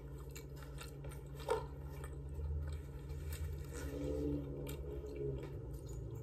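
Close-miked chewing of a mouthful of steamed chicken breast sandwich on a soft roll, with many small irregular mouth clicks.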